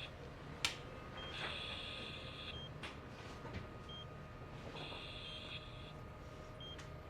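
Patient monitor beeping in an operating room: a repeating electronic tone about a second long, roughly every three seconds, each preceded by a short blip, over a faint steady hum. A sharp click about half a second in.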